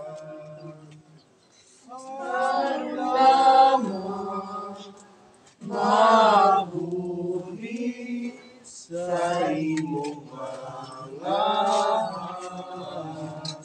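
Voices singing a slow funeral hymn in phrases a few seconds long, with short breaks between them.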